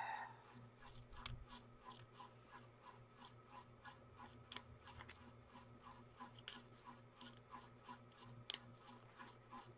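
Small scissors snipping through a paper strip of diamond-painting symbol labels: a quick, even run of faint snips, about three a second.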